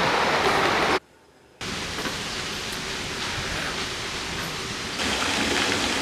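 Steady rushing water, an even hiss without tone. It cuts out abruptly to near silence for about half a second about a second in, then returns, and is louder again about five seconds in.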